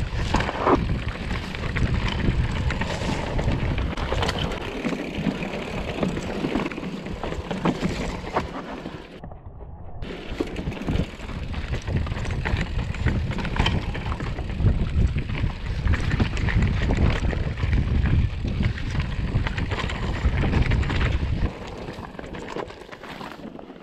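Mountain bike descending a rough rocky trail: wind rumbling on the microphone, tyres crunching over gravel and rock, and the bike rattling with many small knocks. The wind rumble drops away near the end as the bike slows.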